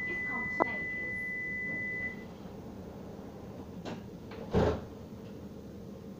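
An Alstom Citadis 302 tram's door-closing warning tone: one steady high-pitched tone that cuts off about two seconds in, over a low cabin hum. A dull thump follows about four and a half seconds in.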